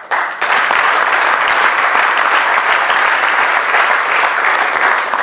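Audience applauding in a large hall: dense, steady clapping that starts suddenly and begins to die away near the end.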